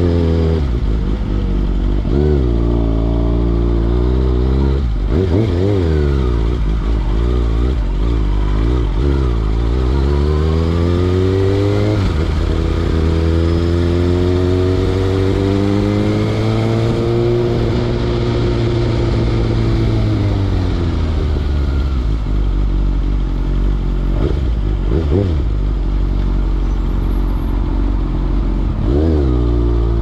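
Kawasaki ZX-6R 636's inline-four engine through a Carbox aftermarket racing exhaust, under way. The revs rise and fall in several short pulls, then climb in one long pull that peaks and falls away as the bike slows. Near the end it settles to a low, steady note with a couple of brief throttle blips.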